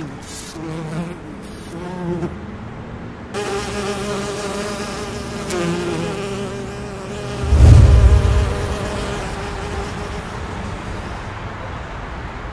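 Cinematic intro sound design from a music video: a wavering, buzzing drone. A deep low boom about seven and a half seconds in is the loudest moment, and it dies away slowly.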